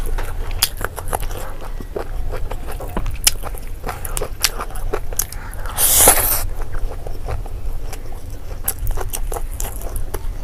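Eating sounds of a person feeding herself rice and pork by hand, close to a clip-on microphone: a steady run of short bites and chewing clicks, with one louder noisy burst about six seconds in.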